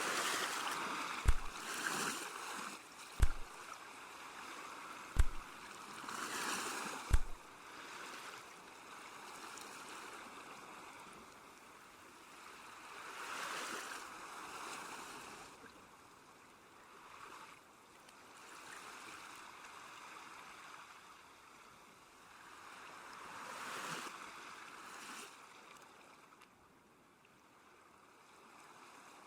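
Sea waves washing in slow swells, each rising and falling over a few seconds. During the first seven seconds, deep thumps come about every two seconds and are louder than the waves.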